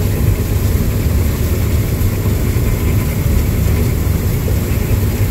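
Combine harvesting corn, heard from inside the cab: a steady low drone of the engine and running threshing machinery.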